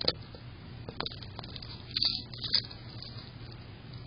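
Hedgehog moving over gravel: scattered small clicks and crunches, with a louder cluster of sharp clicks about two seconds in, over a steady low hum.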